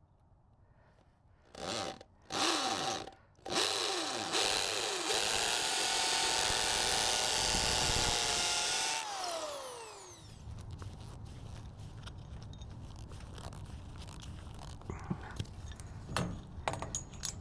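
Cordless drill with a socket bit: three short trigger pulls, then held at full speed for about five seconds with a steady whine that winds down when the trigger is released. A few light knocks and clicks near the end.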